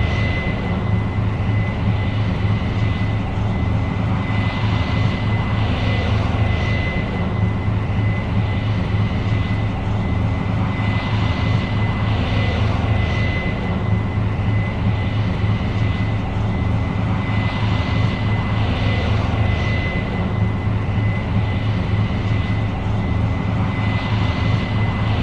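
Case IH 8230 Axial-Flow combine running steadily while harvesting: a deep engine drone with a thin, steady high whine over it.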